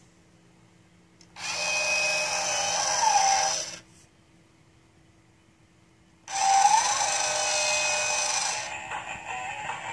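Electronic sound effects from a battery-powered toy truck's sound buttons, played twice, each lasting about two and a half seconds and with a short swooping whine in it. After the second one, a quieter sound carries on near the end.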